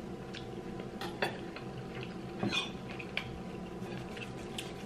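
Steak knives and forks clinking and scraping on dinner plates as steak is cut: a few short separate clicks over a faint steady hum.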